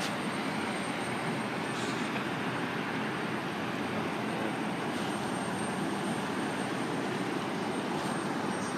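Steady rushing noise of jet airliner engines running across an airport, with a faint steady high-pitched whine.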